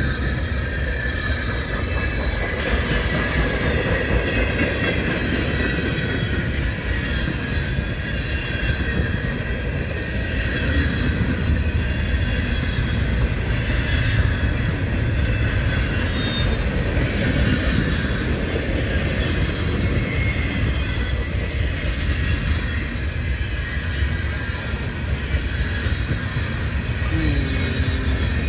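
A train's cars rolling past: a steady low rumble of wheels on rail with high, thin wheel squeal sounding over it.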